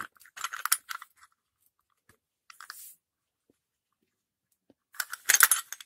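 Metal brushcutter gearbox head and shaft tube clicking and rattling as they are handled and fitted together: a cluster of clicks at the start, a short scrape near the middle, and a louder burst of rattling clicks near the end.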